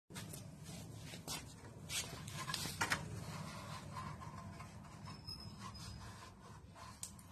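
Handling noises: a few sharp clicks and knocks over a low steady hum, the loudest about three seconds in.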